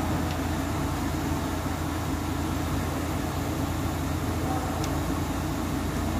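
Steady low mechanical hum, even in level throughout, with two faint light clicks, one near the start and one about two-thirds of the way through.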